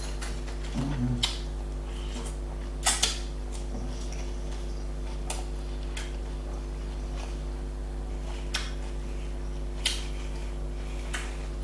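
Eating sounds from a doner kebab meal: a few scattered soft clicks and taps, a second or more apart, over a steady low hum.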